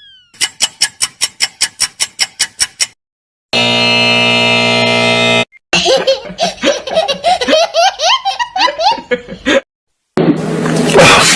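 A string of edited sound effects: a quick run of about twenty clicks, a buzzer tone held for about two seconds, then a laughing sound effect, and a loud noisy stretch starting near the end.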